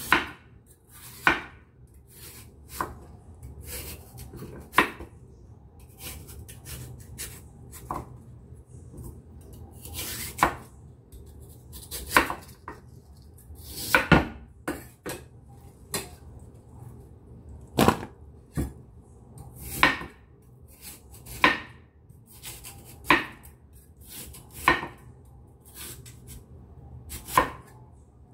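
Chinese cleaver slicing a peeled lotus root into thin rounds on a wooden cutting board, each stroke ending in a sharp knock on the board, one every second or two.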